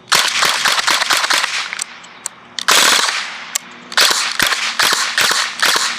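Arcturus PP19 airsoft electric gun firing rapid full-auto bursts of sharp clicking shots: a long burst, a short one about three seconds in, and another long burst near the end.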